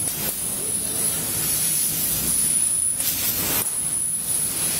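CNC laser cutter running while cutting MDF: a steady airy hiss of its air assist and fans, with a thin high whine that drops out for a moment about three seconds in.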